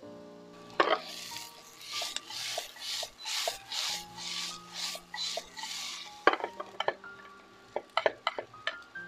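Ladle stirring sliced onions in a pot, a rhythmic scraping swish about twice a second. Near the end come several sharp knocks of the ladle against the pot and plate.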